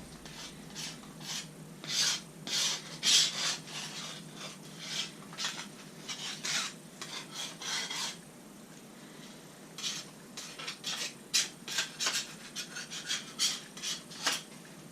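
Repeated short scraping strokes at an irregular pace, with a pause of about a second and a half just past the middle.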